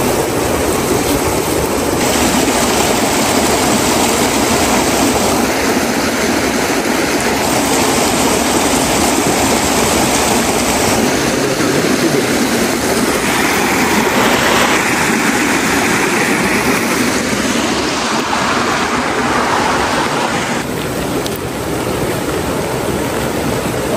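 Rushing water of a rocky mountain stream, a steady loud hiss that shifts abruptly in tone several times.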